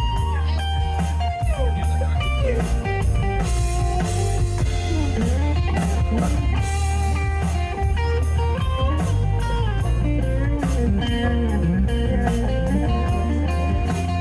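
Live blues-rock band playing an instrumental passage: an electric guitar plays a lead line with bent, gliding notes over bass and a drum kit keeping a steady beat.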